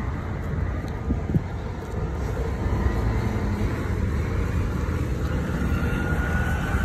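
Road traffic on a wide city avenue: a steady rumble of passing cars.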